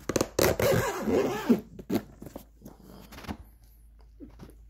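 The zipper of a semi-hard drone carrying case being pulled closed, a rasping run over the first second and a half, followed by a few short knocks.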